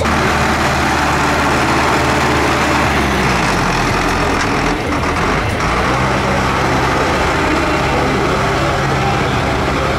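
Tractor engine running loud and steady, its pitch dropping about three seconds in before it settles again.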